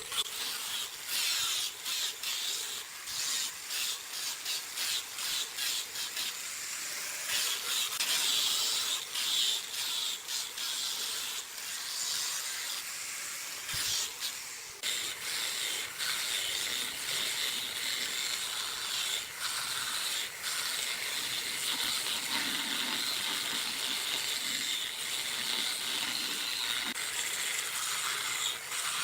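Hand tools or a machine working wood: a steady scraping hiss of cutting or sanding, broken by many small clicks and ticks.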